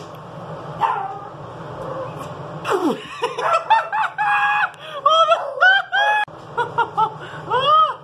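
A woman laughing hard in a run of short, high-pitched squealing bursts, starting about three seconds in and going on to the end.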